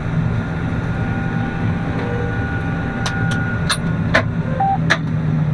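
John Deere combine running while cutting soybeans, heard from inside the cab as a steady low drone. Several sharp clicks come through between about three and five seconds in.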